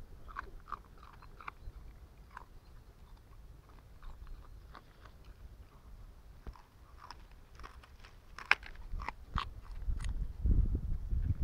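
A puppy chewing and biting raw vegetable stalks, giving irregular wet crunches that come thickest near the end. A louder low rumble comes in over the last second.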